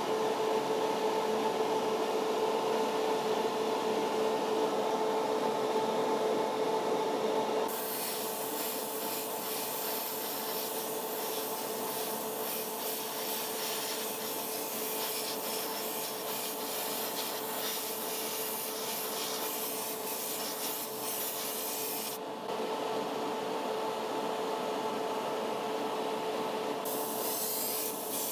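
Airbrush spraying paint with a steady high hiss, over a constant motor hum from the spray booth setup. The spraying starts about a quarter of the way in, cuts off suddenly about three quarters in, and starts again near the end.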